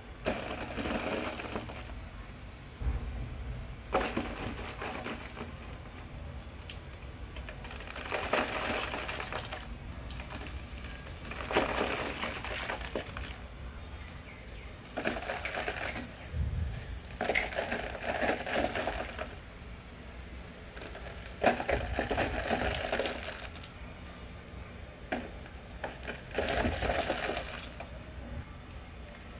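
Dry red dirt clods crushed and crumbling with a dense crackling crunch. It comes in about eight separate bouts of a second or two each, a few seconds apart.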